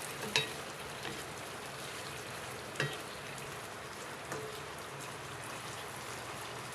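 Pork cubes in marinade sizzling in a pan with a steady hiss, with two sharp clinks of a utensil against the pan, one just after the start and one about three seconds in.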